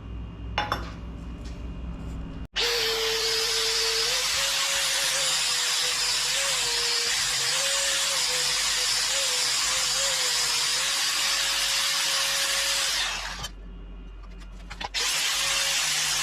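TIG welding arc: a steady hiss with a slightly wavering buzz that starts abruptly, fades off after about ten seconds, then strikes up again near the end.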